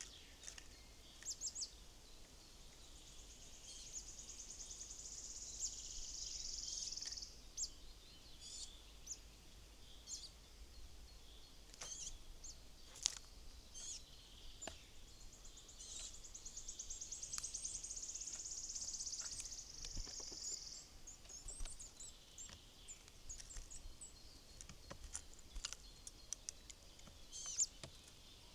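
Small woodland songbirds singing and calling: twice a long, rapid, high trill lasting about four seconds, with scattered short chirps and calls in between.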